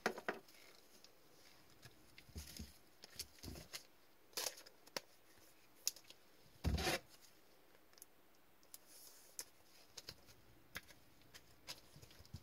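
Sparse handling noises: trading cards in rigid plastic top loaders clicking and rustling as they are set down and arranged, with one louder dull thump about seven seconds in.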